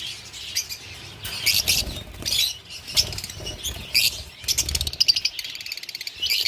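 Many caged birds chirping busily, with short quick chirps overlapping throughout, and wing flapping among them.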